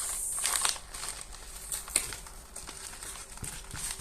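Packaging being handled and rustled during unboxing: a brief crinkling rustle at the start, then scattered small scrapes and taps with a sharp click about two seconds in.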